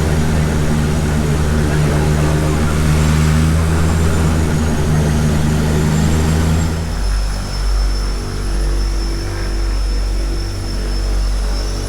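Floatplane's propeller engine running with a steady drone. About seven seconds in the sound changes to a lower, rougher drone with a thin high whine.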